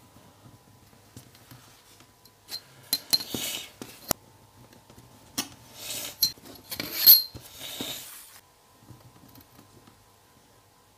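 A steel ruler handled and set down on leather pieces on a table: metal clinks and scrapes in two bursts, the loudest clink about seven seconds in.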